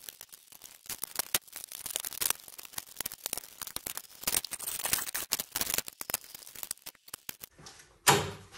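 Rapid clicking and rattling of plastic body panels and push-pin fasteners being pried off a Polaris RZR RS1, with one loud knock near the end.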